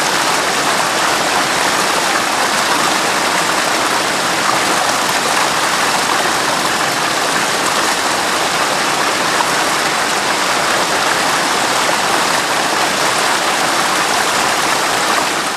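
Steady, even rushing of water, with no calls from the bird.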